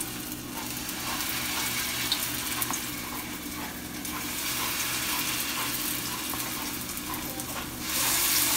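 Potato pancake batter sizzling in hot oil in a stainless steel frying pan as spoonfuls are dropped in one after another; the frying hiss grows louder near the end as more pancakes fill the pan.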